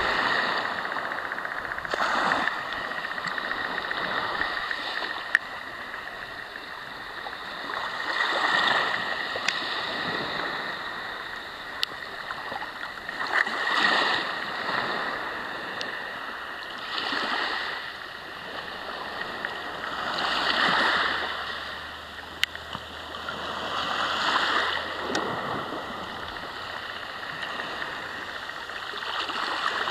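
Small sea waves breaking and washing up a pebble beach, the surf swelling and falling back every few seconds.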